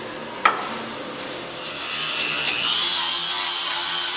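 Angle grinder with a flap disc spinning up about a second and a half in and grinding the Zephyr's steel body sheet metal, a steady high whine over a rasping hiss. A sharp click comes about half a second in.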